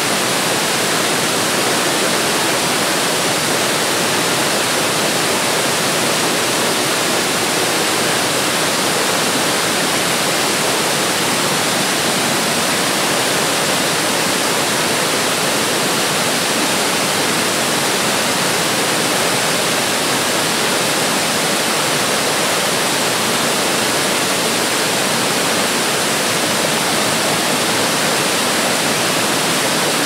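Waterfall cascading down a rock cliff into white-water rapids: a steady, even rush of falling and churning water that does not change.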